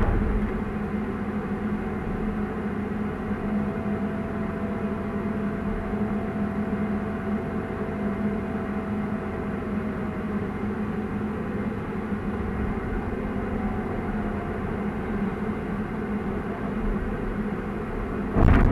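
Excavator's diesel engine running steadily under load, heard from inside the cab while the operator works the hydraulic controls, with a faint high whine for several seconds in the first half. A single sharp knock near the end.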